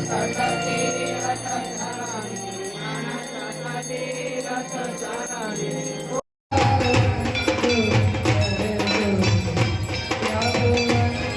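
Music with what sounds like singing and bells, cutting out abruptly about six seconds in for a moment, then giving way to a louder piece with a steady percussive beat.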